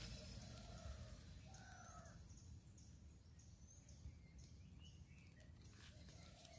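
Faint birds calling in quiet outdoor air: a few lower calls in the first two seconds, then short high chirps through the middle.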